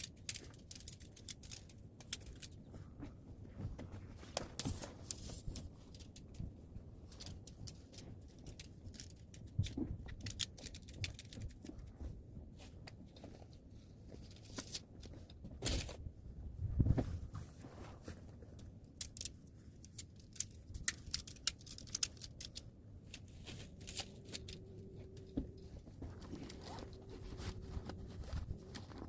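Hilleberg Allak 2 tent being taken down by hand: fabric rustling and crinkling, with many irregular sharp clicks and knocks as it is handled.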